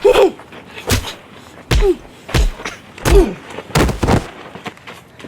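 A string of about six hard thumps and slams, roughly one every second, several of them paired with a short falling grunt.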